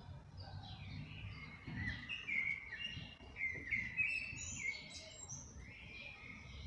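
Songbirds singing: a quick run of short whistled notes in the middle, over a low steady rumble.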